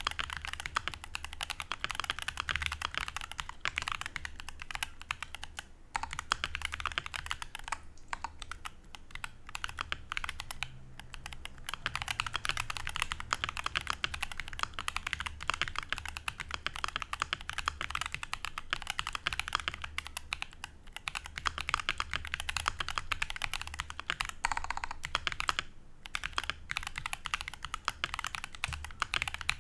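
Continuous fast typing on a HolyTom 980 mechanical keyboard with stock, unlubed Akko CS Ocean Blue switches and PBT double-shot cherry-profile keycaps: a dense run of key clicks with a few short pauses.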